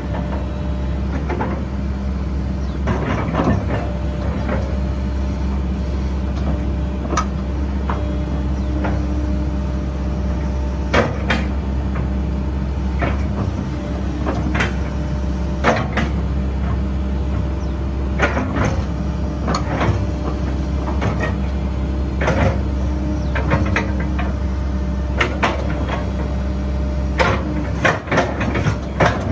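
Kobelco SK135SR-3 hydraulic excavator running with a steady diesel drone while its boom, arm and bucket are worked, with many sharp clanks and knocks scattered throughout, more frequent near the end.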